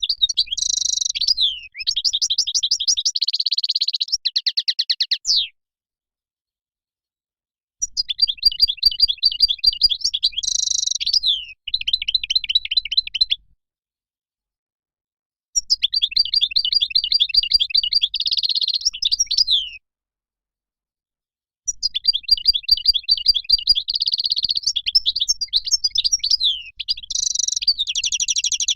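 European goldfinch singing: long phrases of fast, twittering chirps and trills with buzzy notes, four phrases in all, each broken off by a pause of about two seconds.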